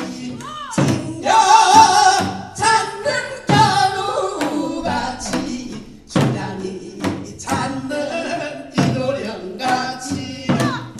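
Korean pansori-style folk singing by a man and a woman, amplified through a PA, accompanied by janggu and buk drum strokes.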